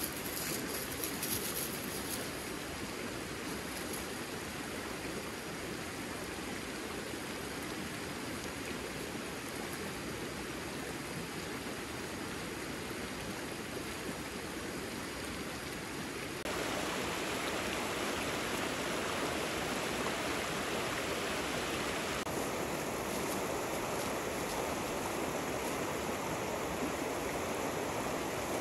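Shallow creek rushing over rocks in a steady rush of water. About two-thirds of the way through it suddenly becomes louder and brighter.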